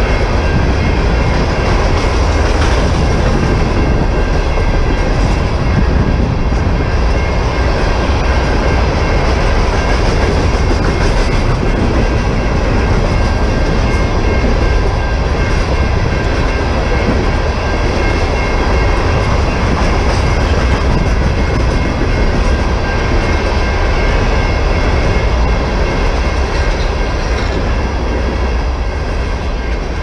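A freight train of empty steel ore hopper cars rolling past at close range: a loud, steady rumble of wheels on rail, easing off slightly near the end.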